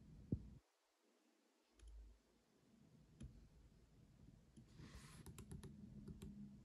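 Faint clicks and taps over quiet room tone with a low hum: one sharp click just after the start, a soft low thump about two seconds in, and a quick run of small clicks about five seconds in.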